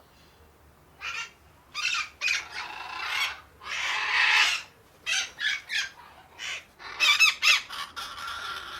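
A group of parakeets squawking, with short harsh calls in quick succession. A longer call lasts about a second, about four seconds in, and a dense run of calls comes near the end.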